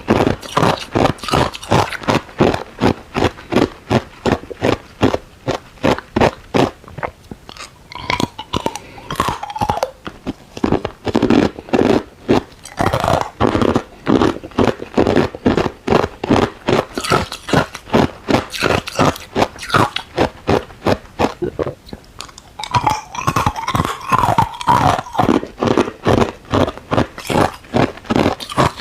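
Ice cubes being bitten and chewed close up, a rapid run of loud crunches, several a second, with short pauses between mouthfuls.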